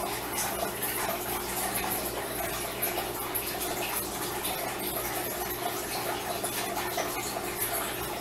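Steady background hiss with a low hum underneath; nothing from the insects stands out.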